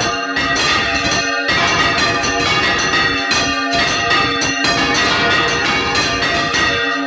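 Five church bells swung full circle together in a Valencian general 'volteig', their strikes overlapping in a loud, dense, continuous peal heard from inside the bell chamber.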